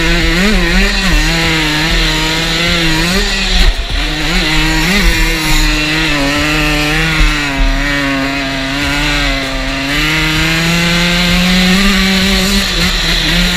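Dirt bike engine pulling hard through sand, its revs rising and dipping with the throttle. There is a brief dip a little before four seconds in, and a long steady high-rev pull near the end.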